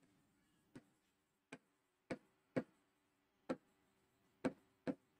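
Chalk tapping and clicking on a blackboard as words are written: about seven faint, sharp taps at uneven intervals.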